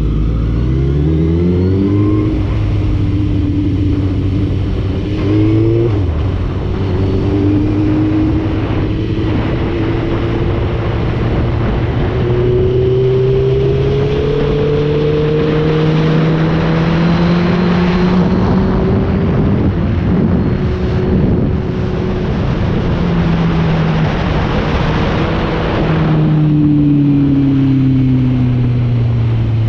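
Motorcycle engine heard on board while riding: it revs up quickly at the start, changes gear about six seconds in, then pulls steadily higher in pitch with wind rush building. Near the end the engine note falls away as it slows down.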